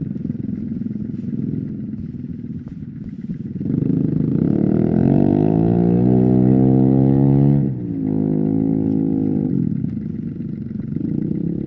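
Motorcycle engine running, then about four seconds in it pulls away with a rising pitch for several seconds. The pitch drops sharply, as at a gear change, and holds steady before easing back near the end.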